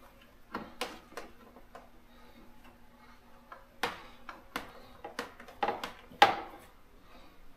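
Irregular sharp clicks and knocks, about a dozen, with the loudest a little after six seconds in. They come from a fuel pump assembly and its locking ring being pushed and worked by hand into the fuel tank neck.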